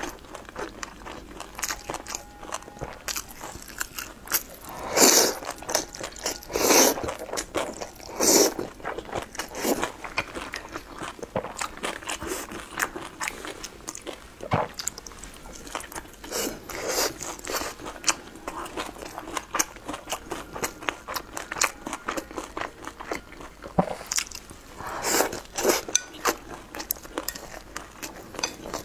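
Close-up eating sounds: a person biting and chewing food, with crunching and many small wet mouth clicks, louder in a few spells.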